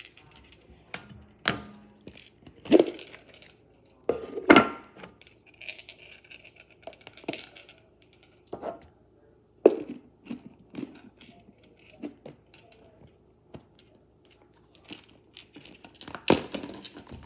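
Objects handled and packed away by hand: irregular knocks and clicks of hard items set down, with short bursts of crinkling and rustling packaging.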